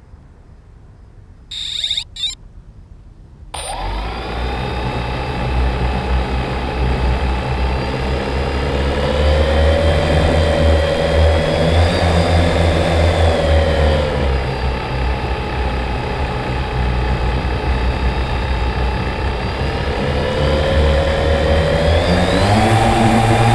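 3DR Solo quadcopter on the ground: two short high beeps, then about three and a half seconds in its four electric motors and propellers spin up and run with a steady hum. The hum's pitch rises and falls a few times, climbing again near the end.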